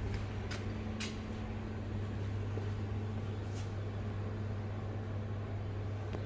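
Steady low hum of kitchen machinery, with a few faint clicks about half a second, one second and three and a half seconds in.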